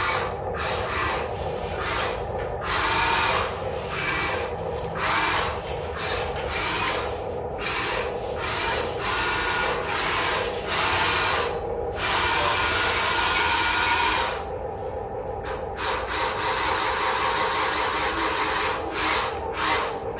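Electric motors and gearboxes of a Huina RC excavator whining in short stop-start bursts as it is driven and worked, with a quieter lull about two-thirds of the way in.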